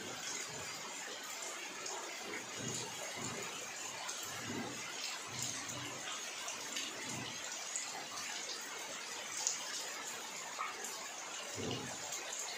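Steady rain falling on standing floodwater: an even hiss with scattered small drop ticks, and a few soft low thumps, the clearest near the end.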